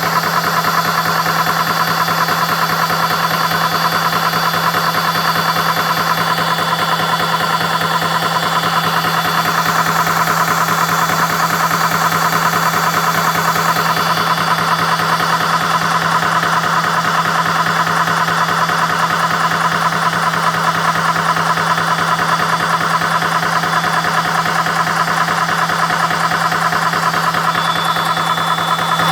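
CS6 Pro portable high-pressure PCP air compressor running steadily, pumping air into a PCP air rifle's tank during the fill.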